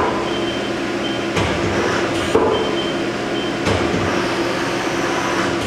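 Mori Seiki SL-15MC CNC lathe's 12-station turret indexing from tool to tool, with three knocks about a second apart as it steps and locks. Under it runs the machine's steady hum.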